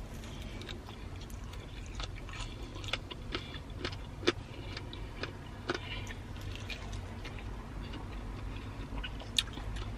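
Chewing and nibbling a crispy fried chicken wing: quiet mouth sounds with scattered small crunches and clicks, a sharper one about four seconds in and another near the end, over a low steady rumble.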